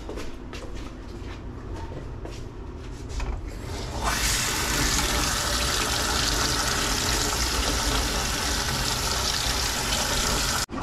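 Water tap running steadily as a fish is rinsed under it, turned on about four seconds in and shut off abruptly near the end. Before that, a few faint handling clicks.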